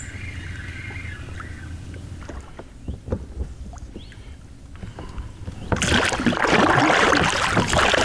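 Rowboat drifting on a river, held back by an anchor chain dragging along the bottom: a few light knocks from the boat, then about six seconds in a loud, steady rush of water starts suddenly.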